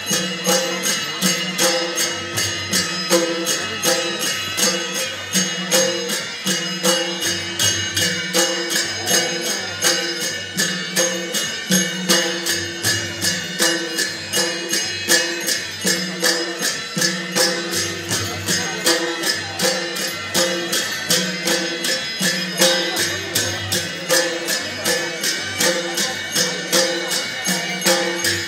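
Traditional Newar music for the Bhairab masked dance. Drums sound under a steady, even beat of jingling metal percussion, about three strikes a second, with a few held tones.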